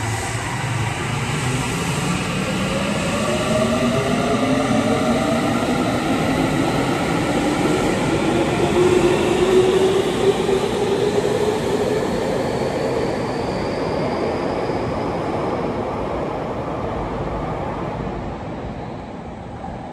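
Tokyu 3000 series electric train pulling away, its Toshiba IGBT-VVVF inverter and traction motors whining in several tones that rise steadily in pitch as it gathers speed. The sound is loudest about halfway through, then fades as the train leaves.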